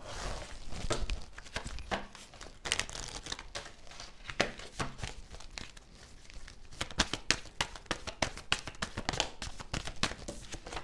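A deck of cards shuffled by hand: a rapid, uneven run of card clicks, slides and riffling, with cards laid down on the table near the end.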